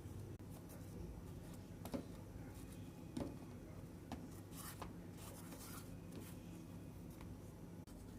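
Light handling sounds from preparing chapati: a few scattered soft knocks and rustles over a steady low hum.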